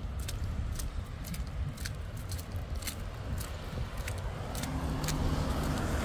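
Low vehicle engine rumble with scattered sharp clicks and crackles. About four and a half seconds in, a steady engine hum rises and grows louder.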